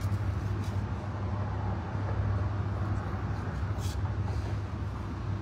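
Steady low hum with an even rushing noise over it, like a running machine.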